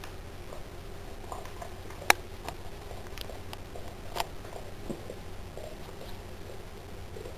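A Boxer dog chewing a raw fish: scattered clicks of teeth, with a sharp snap about two seconds in and another about four seconds in.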